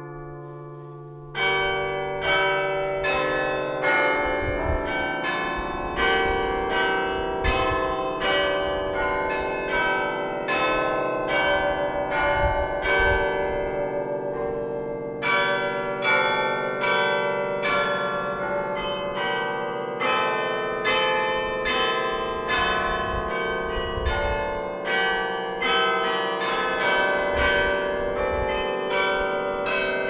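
Hoover Tower carillon played by a carillonneur: a tune of quick bell strokes, several a second, with the struck bells ringing on over one another. A single ring is fading at the start, and the playing resumes about a second and a half in.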